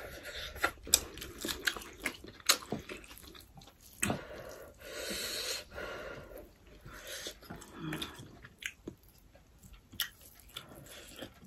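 Close-miked mukbang eating sounds: people chewing mouthfuls of rice and curry with wet mouth smacks and many scattered sharp clicks, and a short hissing patch about halfway through.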